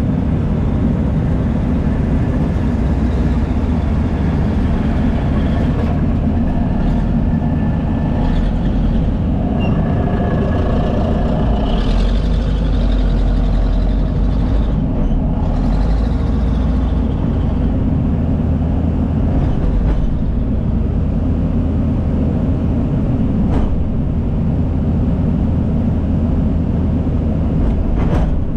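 Heavy diesel earth-moving machinery at work: a Case 450 crawler dozer and a John Deere excavator running, with a steady low engine rumble.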